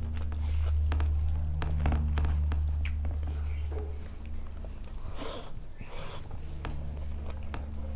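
Close-up eating sounds of rice and curry eaten by hand: chewing, with many short clicks and smacks, over a steady low hum. About five seconds in come a couple of louder, noisier crunches or rustles.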